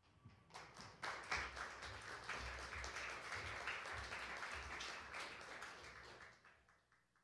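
Church audience applauding. The clapping starts about half a second in, quickly swells, and fades out near the end.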